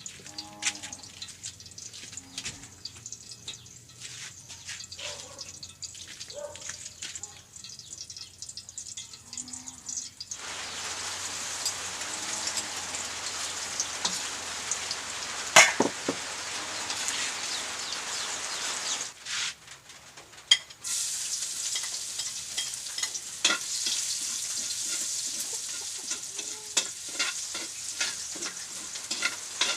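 Food frying in a hot pan with a steady sizzle and clicks and scrapes of a utensil stirring. The sizzle starts loud about a third of the way in, breaks off briefly past the middle, and then picks up again.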